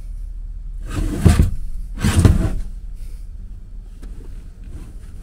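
Heavy inverter/charger dragged along the floor of its compartment in two pushes: two short scraping rumbles, each about half a second long and about a second apart.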